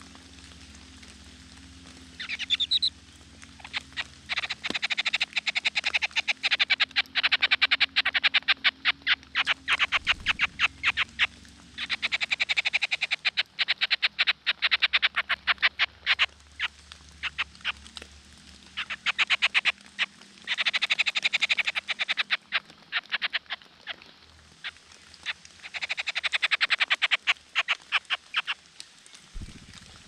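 Animal calls in repeated bouts of rapid rattling pulses, loud and close, each bout lasting a few seconds with short pauses between.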